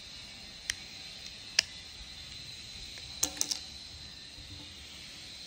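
A few sharp clicks of small tools against a Victorinox Mountaineer Swiss Army knife and its plastic scale as the scale is pried off: one click about a second in, a louder one shortly after, and a quick run of three around three seconds in, over a steady hiss.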